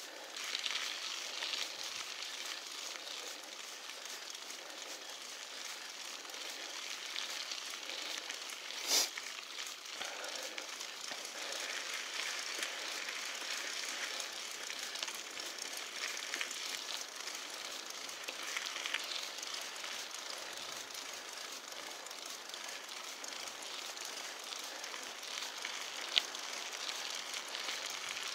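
Mountain bike tyres rolling over a gravel dirt road, a steady crackling crunch of grit. A sharp click about nine seconds in and another near the end.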